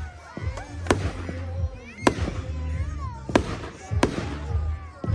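Fireworks going off: five sharp bangs, roughly one a second.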